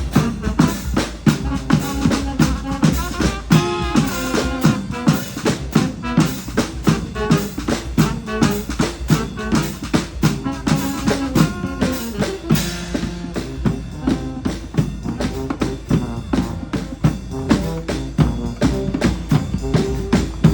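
Live street-band music: a busy, driving drum beat of snare and bass drum with horns playing a melody over it.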